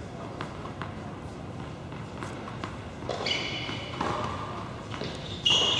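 A tennis ball is bounced several times on an indoor hard court before a serve, a short sharp knock every half second or so. Two high squeaks follow, about halfway through and, louder, near the end.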